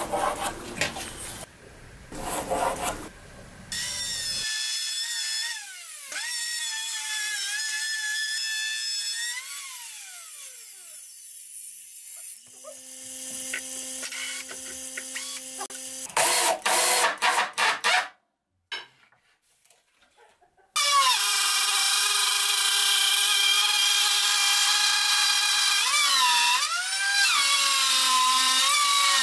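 Cordless drill whining, its pitch sagging and gliding as it bores into a hardwood panel, with short bursts of cutting noise. After a short gap a Black & Decker router starts and runs with a loud high whine as it cuts a circular groove in the wood, its pitch dipping once briefly under load.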